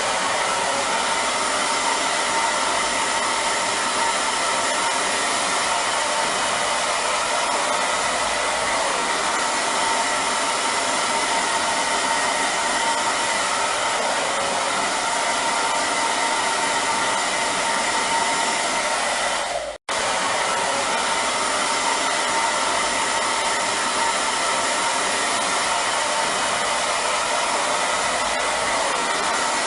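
Hair dryer running steadily: an even rush of blown air with a faint motor hum in it. The sound drops out for a split second about twenty seconds in, then carries on unchanged.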